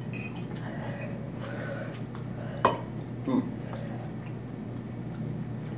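Light clatter of tableware and food containers as food is eaten, small scattered clicks with one sharp click about two and a half seconds in, over a steady low electrical hum.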